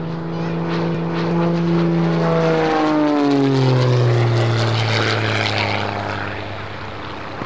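Zivko Edge 540 aerobatic plane's piston engine and propeller droning as it flies past. The pitch drops about three seconds in as it passes; it is loudest just after that and then fades.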